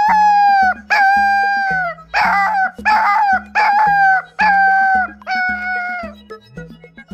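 A puppy howling in a series of about seven short howls, each up to a second long, often dropping in pitch at the end.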